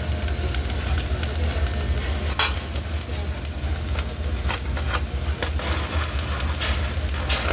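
Arc welding: an irregular crackling sizzle from the welding arc over a steady low hum, with one sharper crack about two and a half seconds in.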